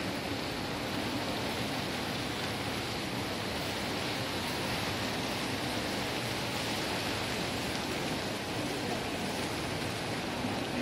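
Steady, even hiss of a large indoor shopping-mall atrium's ambience, with no distinct events.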